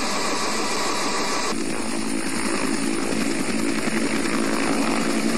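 A UH-1 Huey-type helicopter running close by at low height, its two-bladed rotor making a fast chop over a steady engine noise. The sound changes abruptly about a second and a half in.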